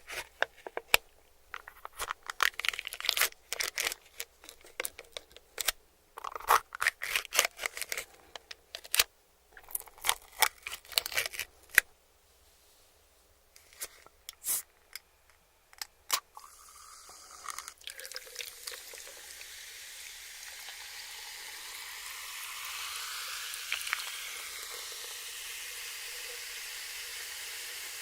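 Close-up crunching and crackling of crispy fried chicken and its wrappers being handled and bitten, in quick irregular bursts. After a short pause, a steady hiss rises slowly and keeps going.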